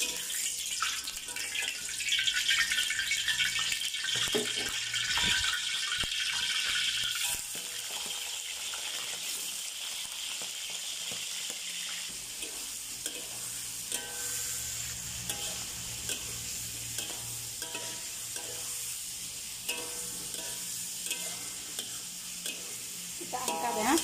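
Parboiled chicken livers sizzling in hot oil in a metal wok, loudest from about two seconds in and settling to a steadier sizzle after about seven seconds. A metal spatula scrapes and stirs in the wok near the end.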